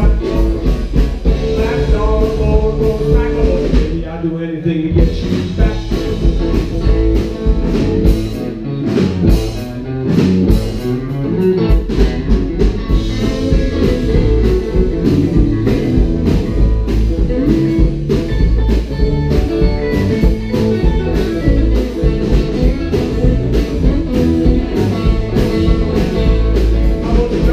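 Live rockabilly band playing: electric guitars, electric bass and drums, with a steady driving beat and a short break about four seconds in.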